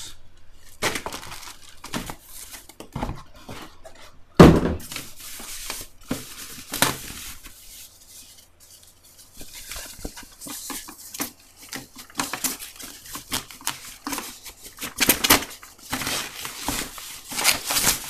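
Plastic bag and wrapping rustling and crinkling while a packaged robot vacuum is handled, with scattered clicks and knocks of cardboard packaging; the loudest is a sharp knock about four seconds in.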